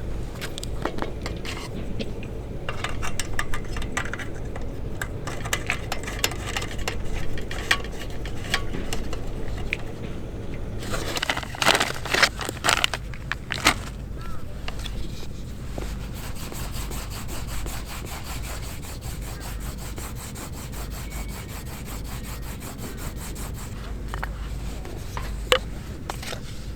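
Scraping and rubbing handling noises with scattered clicks, over a low steady rumble. A cluster of loud sharp knocks comes about halfway through, and a single knock near the end.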